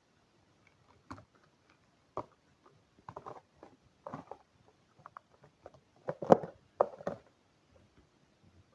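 Eating sounds: a utensil clicking and scraping against a takeaway food container in short, irregular strokes, the loudest cluster about six to seven seconds in.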